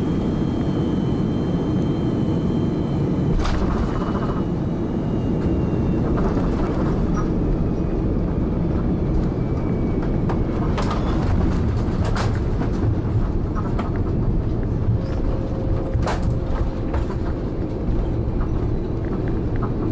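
Cabin noise of an Airbus A330 rolling along the runway and taxiway after landing: a steady low rumble, with the engines' faint whine slowly falling in pitch over the first ten seconds. A few sharp knocks are heard along the way.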